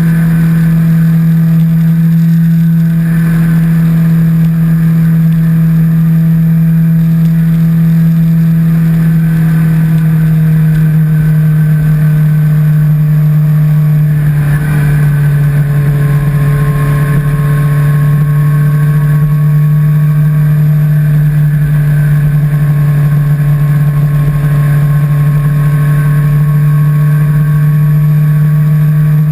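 Kawasaki H2's supercharged inline-four engine running at a steady cruise, a loud, even drone. Its pitch drops a little about halfway through and then holds steady.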